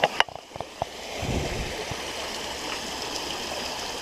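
Spring-fed creek water running steadily over a small waterfall, an even rush, with a few sharp knocks in the first second.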